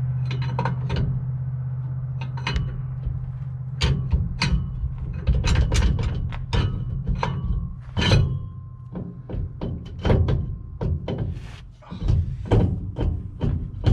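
Irregular metal knocks and clanks of tools working on a car's driveline, some strikes ringing briefly, over a steady low hum.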